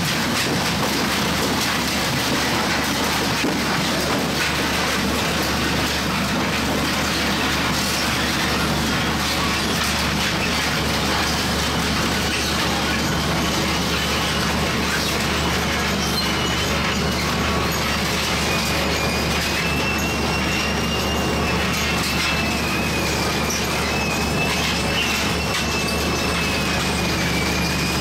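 Twin-shaft shredder tearing up a chest freezer: a steady, loud grinding of sheet metal and plastic between the rotating cutters, with scattered cracks. From about halfway through, a thin wavering metal squeal rides on top.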